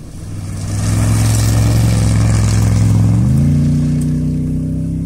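A cross-country rally car's engine passing at speed, getting louder as it comes close, then fading away. Its revs climb sharply about three seconds in, over a hiss of tyres and wind.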